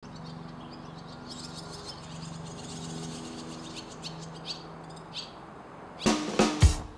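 Fledgling barn swallows twittering in short, high chirps over a faint low hum. Music with sharply plucked notes starts loudly about a second before the end.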